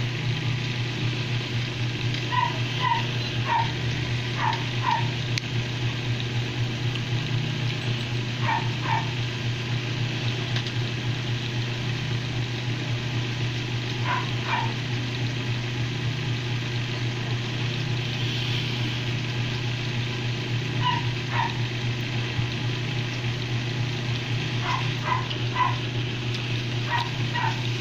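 Short, high canine yips or whimpers, in pairs and threes every few seconds, over a steady low hum.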